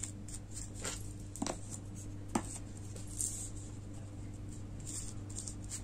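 Faint handling sounds: a few soft taps and strokes of a paintbrush spreading varnish over the rhinestones of a diamond painting, over a steady low hum.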